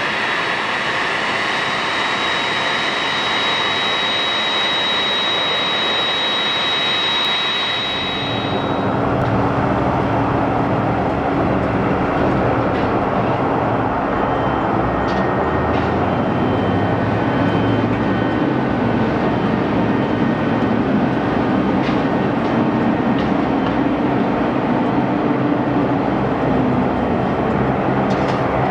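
Twin turbofan jet engines of a Kawasaki C-1 military transport on the runway after landing, a steady high-pitched whine over the jet noise. About eight seconds in the whine stops and the sound becomes a lower, fuller engine rumble that runs on steadily while the aircraft taxis.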